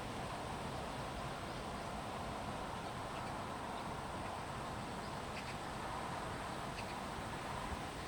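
Stream water flowing steadily after rain, with a few faint short bird chirps.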